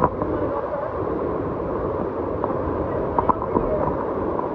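Steady rushing of the waterfall's current through a narrow rock gorge, with a few short knocks or splashes about three seconds in.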